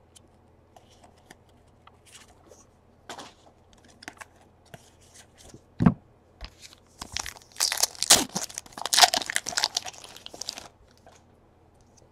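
Trading cards being handled, with light clicks and a single thump about six seconds in. Then a foil trading-card pack is torn open, a burst of crinkling and tearing lasting about three seconds.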